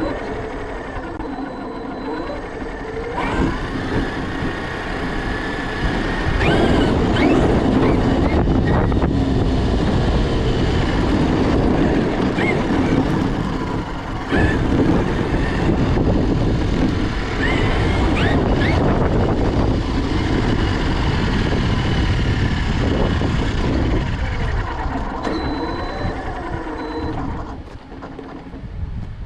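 Traxxas X-Maxx 8S RC monster truck running, its brushless electric motor whining up and down in pitch as it speeds up and slows, over a steady rushing noise.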